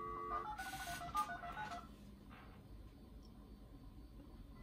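Dial-up modem's speaker: a steady telephone dial tone cuts off about half a second in, and the modem dials the number as a quick run of touch-tone (DTMF) beeps lasting about a second and a half, with a short burst of hiss among them. After that only faint line noise remains while the call goes through.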